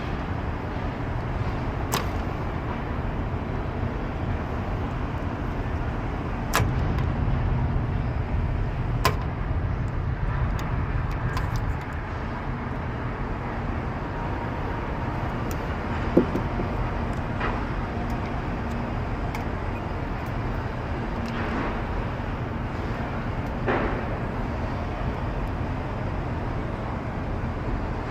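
Old R22 Actron air-conditioning unit running with a steady low rumble and hum, broken by a few sharp clicks and knocks. The system is running far too hot and its fan is turning slowly.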